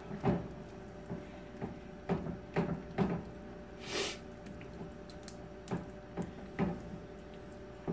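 Silicone spatula folding pork chunks through thick sweet and sour sauce in a stainless steel pan: a dozen or so irregular wet squelches and soft scrapes, roughly two a second.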